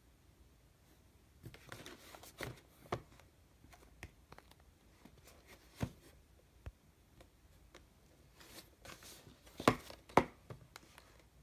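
Handling noise of a cardboard modem retail box on a wooden table: scattered light rustles and taps, with two sharper knocks near the end as the box is picked up.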